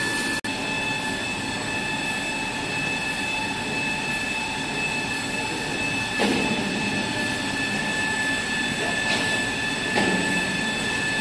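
Toilet paper converting machinery running steadily: a constant machine noise carrying several steady high whine tones. Over it, the laminated two-ply tissue rustles and tears as it is pulled apart by hand, most clearly about six seconds in and again around nine to ten seconds. A brief dropout about half a second in.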